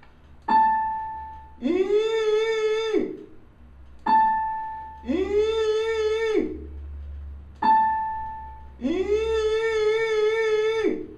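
Electronic keyboard striking a single high note, A5, three times, each fading away, alternating with three longer pitched calls that rise at the start, hold with a slight wobble and fall off at the end: the eagle's call, with the keyboard note matched to its pitch.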